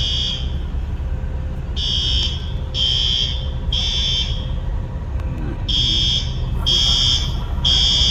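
Building fire alarm sounders beeping a piercing high tone in groups of three, each beep about half a second long and a group about every four seconds, over a steady low rumble. The triple beep is the temporal-three evacuation signal.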